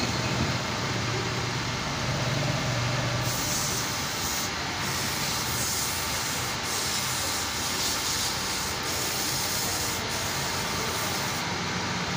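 Wood lathe running steadily with a turned wooden spindle, with intermittent light rubbing of a tool or hand against the spinning wood.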